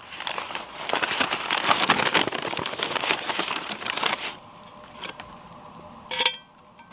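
Paper or packaging crinkling and rustling as it is handled, dense and loud for about four seconds before it stops, then a brief ringing clink near the end.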